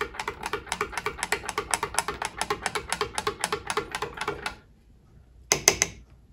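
A metal spoon stirring hot chocolate in a glass mug, clinking rapidly and evenly against the glass about five or six times a second. The stirring stops about four and a half seconds in, and two sharper clinks of the spoon on the mug follow about a second later.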